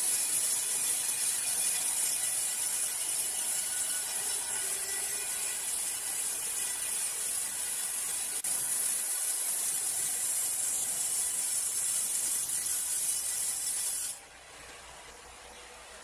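Horizontal band sawmill blade cutting lengthwise through a large log: a steady high hiss of sawing. Near the end it drops suddenly to a much quieter steady hum.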